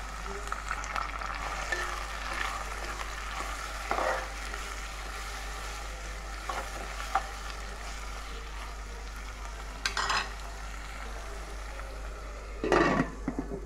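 Sliced onions sizzling steadily in hot oil in a pan, with a few short knocks or clicks, the loudest near the end.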